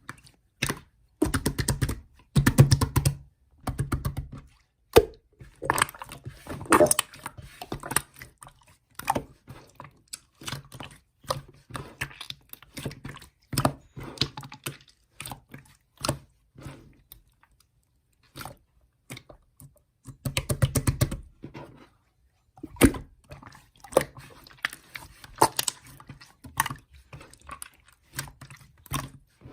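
Irregular clicks and taps in a small room, in dense clusters with gaps between, and a low hum under the busiest stretches.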